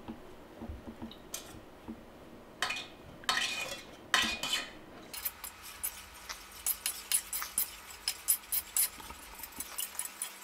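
A utensil stirring a thick mixture of potato starch, water and food colouring in a container, scraping and clinking against its sides; the starch makes the mixture very stiff to stir. About halfway in the clinks speed up to several a second.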